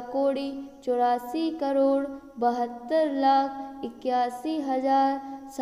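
A woman's voice chanting a Jain puja mantra in a sing-song melody, in phrases of long held notes that glide between pitches.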